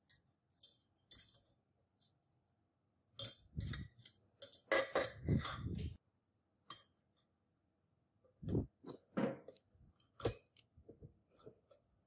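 Handling sounds at a glass beaker of plating solution: light clinks and knocks of glass, wire and a wooden stick. There is a dense run of louder knocks and rattles a few seconds in and a few more knocks around two-thirds of the way through.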